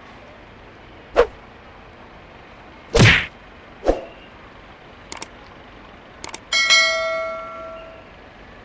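A few separate knocks and thumps, the loudest about three seconds in, then a couple of clicks and a hard object struck and left ringing, a clear ding that dies away over about a second and a half.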